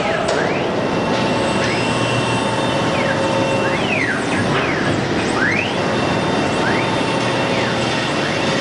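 1325 CNC router running a cutting job: steady spindle and cutting noise, with the axis drive motors whining in short rising and falling pitch sweeps every second or so as the gantry speeds up and slows down.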